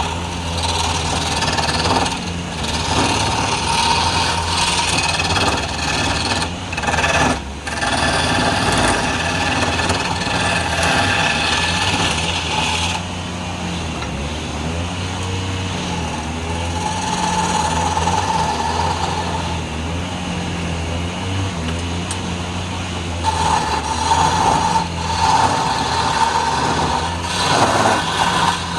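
Wood lathe running with a steady motor hum while a turning tool scrapes and cuts the spinning wood, the scraping rising and easing, with two brief breaks in the cut about seven seconds in.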